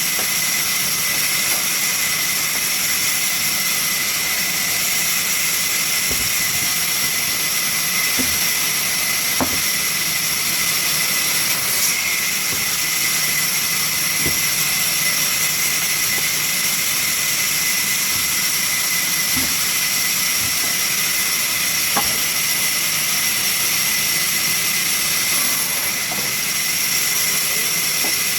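Sawmill machinery running steadily: a constant high-pitched whine over a noisy hum, with a few faint knocks now and then.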